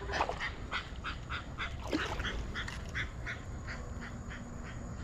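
A bird calling in a long run of short, harsh, evenly spaced notes that fades out near the end.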